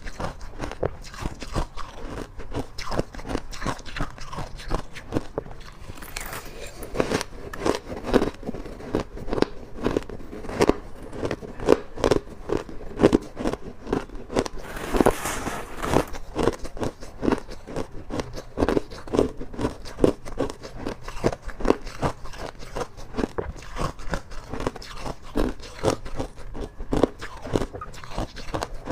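Ice being bitten and chewed close to the microphone: rapid, irregular crunching at several crunches a second, with one longer, harsher crunch about halfway through.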